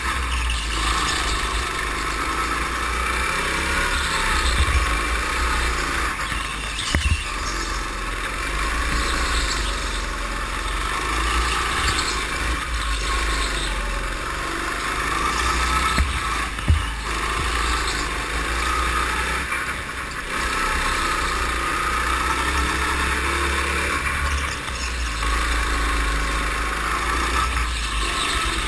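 Go-kart engine heard onboard, running continuously through a lap, over a steady low rumble. Two short sharp knocks come about a quarter of the way in and again just past halfway.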